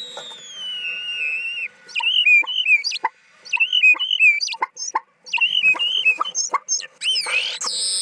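Common starling song: a long falling whistle, then a run of short repeated warbling notes broken by clicks, turning into a denser jumble of chatter about seven seconds in.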